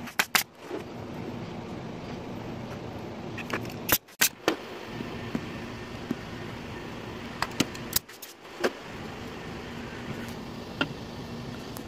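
Pneumatic nail gun firing brads into pine picket boards, sharp shots in small groups a few seconds apart, over a steady background hum.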